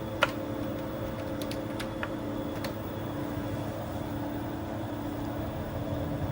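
Steady electrical and mechanical hum of a running TRS-80 Model II computer. One sharp click comes about a quarter-second in, and a few fainter clicks follow over the next two seconds or so.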